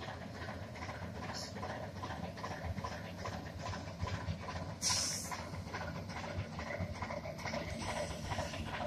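Alco S3 switcher locomotive's six-cylinder diesel engine running with a steady low rumble as it rolls slowly past, with irregular clicking from the wheels on the track. A short burst of hissing about five seconds in.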